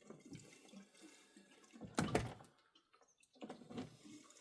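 Fuel being poured into a chainsaw's tank, a quiet trickle of liquid with a sharp clunk about two seconds in.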